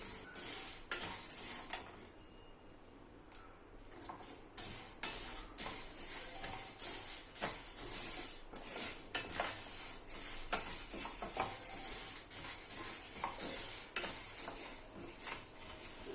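A metal spoon stirring and scraping in a pan, with repeated clinks against the metal. There is a short lull about two seconds in.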